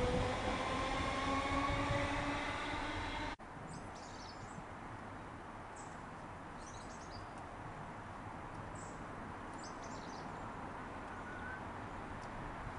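A Merseyrail electric multiple unit pulling away, its traction motors whining and rising slowly in pitch, until a sudden cut about three seconds in. Then a quieter, steady low rumble of another train approaching in the distance, with birds chirping now and then.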